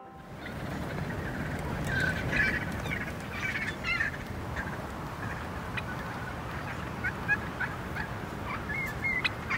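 A flock of wild turkeys calling around the blind: a busy run of short calls about two to four seconds in, then scattered single calls.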